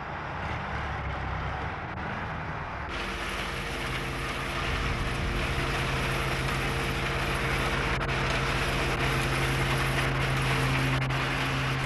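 Heavy construction machinery running: a rough mechanical din that, about three seconds in, becomes a steady engine drone with a held low hum.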